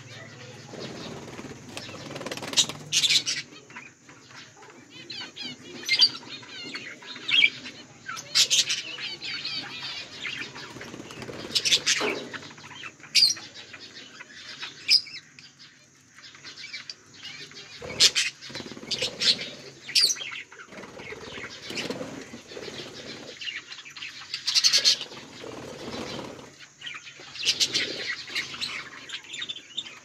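A flock of budgerigars chattering with a soft warble, broken every second or two by loud, sharp chirps, over a low scratchy rustle as they peck at seed on the ground.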